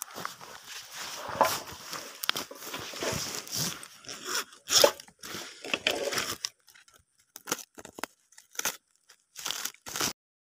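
Footsteps crunching and rustling through dry grass and weeds, irregular and dense at first, then a few separate short rustles, cutting off suddenly near the end.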